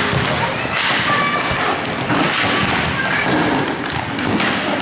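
Roller hockey play: a steady run of knocks and clacks from sticks, puck and skates on the sport floor and boards.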